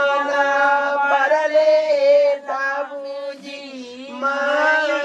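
Several women singing a wedding song together without instruments, holding long notes that slide between pitches, the voices dropping back briefly around the middle before rising again.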